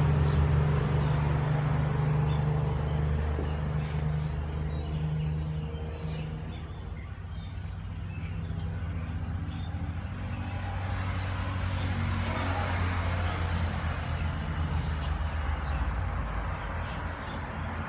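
A steady low engine-like hum, loudest in the first few seconds, with faint scattered clicks of dogs eating from metal bowls.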